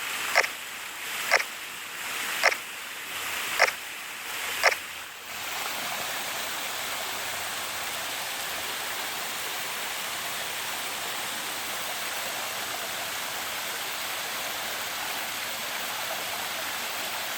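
Camera shutter clicking five times, about one shot a second, over the steady rush of a small waterfall; the clicks stop about five seconds in, leaving only the falling water.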